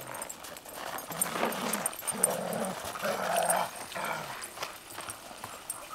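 Dogs growling during rough play-fighting, in a few short low bouts.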